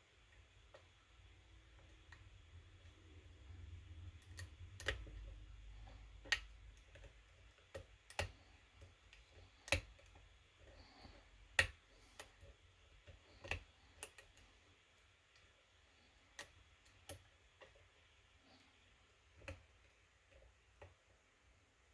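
Sharp, irregular metallic clicks of a lock pick and tension wrench working the pins of a kick cylinder lock held in a vise, roughly one every second or two, with a dull low rumble of handling a few seconds in.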